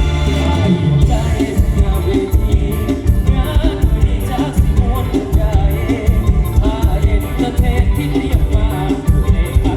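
Loud Isan (northeastern Thai) stage-show music: a singer's wavering melody over a full band with a fast, steady drum beat.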